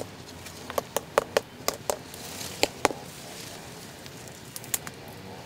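An irregular run of sharp clicks and knocks, about ten in the first three seconds and two more a little before the end.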